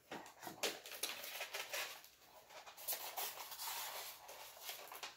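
Plastic packaging crinkling and rustling in irregular crackles as hands unwrap small model parts.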